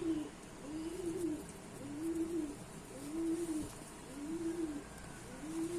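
Domestic pigeon cooing: a steady series of short coos, about one a second, each rising and then falling in pitch.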